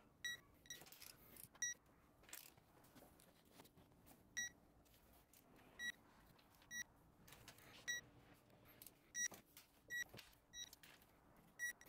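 Short high electronic beeps, about a dozen, spaced irregularly over a quiet background.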